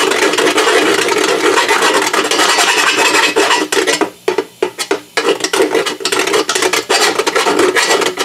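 Small hand file rasping back and forth in a hole in sheet metal, cleaning rust from the edges of an old hole. Quick, steady strokes, with a few brief pauses between about four and five and a half seconds in.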